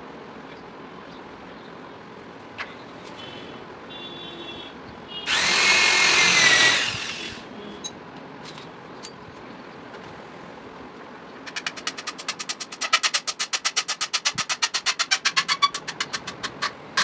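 A power drill runs in one burst of about two seconds with a whine. Later comes a rapid, even train of sharp clicks, about eight a second, lasting about five seconds.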